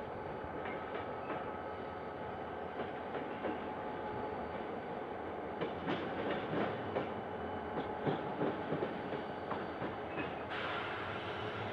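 No. 7369 diesel locomotive moving slowly through a rail yard: a steady engine and running noise, with a run of irregular clicks and clacks from the wheels over rail joints and points in the middle. A brighter, hissier noise joins near the end.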